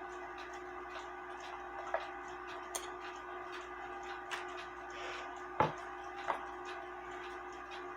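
Small spring-driven movement of a 1928 Lux Blossom Time clock ticking steadily, with a few louder knocks and clicks from the movement being handled.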